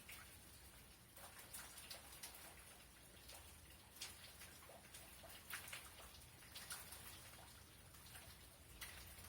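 Faint rain, with scattered drops and drips ticking at irregular intervals.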